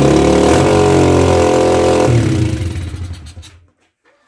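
125 cc dirt bike engine running loud and fast, just fired after being started, then dying away and stopping about three and a half seconds in. The owner calls the noise a scream ("elle gueule un truc de malade"), on a carburettor he is struggling to set, with the choke off.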